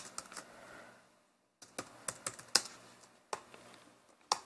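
Typing on a laptop keyboard: irregular runs of key clicks with short pauses, and one sharper keystroke near the end.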